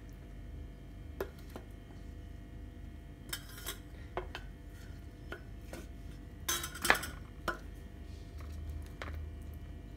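Wooden spatula tapping and scraping against a stainless steel bowl: scattered light clinks, with the loudest cluster a little past the middle.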